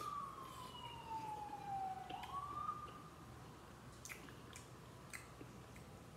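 A siren wailing faintly, its pitch falling slowly, then rising again and fading out about three seconds in. A few light clicks of a utensil follow.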